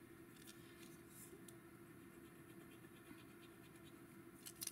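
Faint scratching of a Derwent Graphik Line Painter paint marker's nib drawing zigzags on sketch paper, with a few short, louder strokes near the end. A faint steady hum sits underneath.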